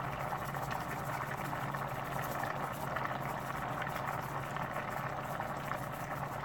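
Steady simmering hiss from a pan of chicken cooking on an electric stove, over a low steady hum.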